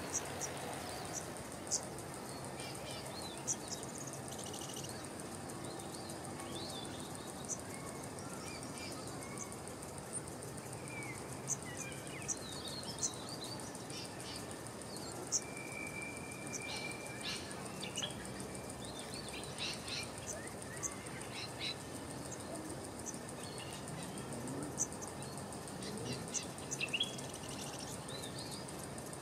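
Small birds chirping and calling now and then over a steady high-pitched insect drone, likely crickets, with one held whistle about halfway through.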